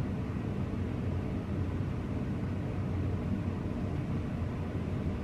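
Steady low hum with a faint hiss, with no distinct events: room tone.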